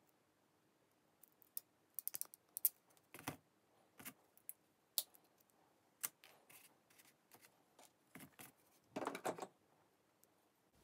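Ratcheting crimping pliers clicking as a small wire terminal is crimped onto a capacitor lead: a quick run of sharp clicks about two seconds in, then single clicks about once a second and a short rustle of handling near the end.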